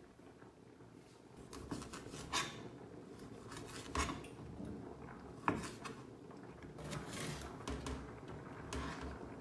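Kitchen knife cutting tomatoes, then a bell pepper, on a plastic cutting board: a few scattered knocks of the blade hitting the board, the sharpest about five and a half seconds in, with softer scraping between them.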